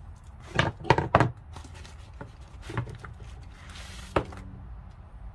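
Handling noise from a set of mechanic's picks: a quick cluster of sharp knocks and clicks about a second in, another knock near three seconds, and a brief rustle followed by a single sharp click near four seconds, as the picks are taken out and set down.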